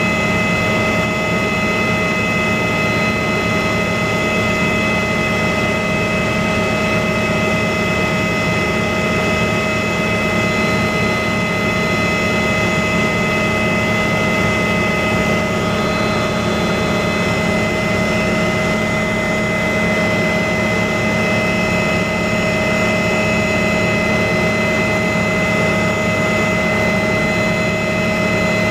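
An aircraft in steady flight: a constant engine hum with several unchanging whining tones over it, no change in pitch or level.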